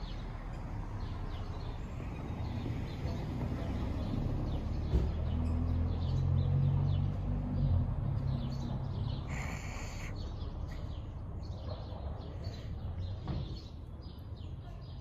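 Street ambience with birds chirping throughout. A low engine rumble swells in the middle and fades again, and there is a brief hiss shortly after.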